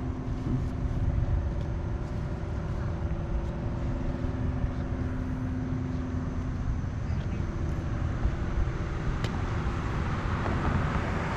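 Steady low rumble of a running motor vehicle, with a steady engine hum.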